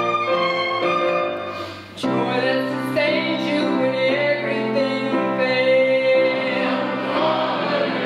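A church choir singing with violin and string accompaniment, in held notes. Just before two seconds in the music dips briefly, then comes back in strongly.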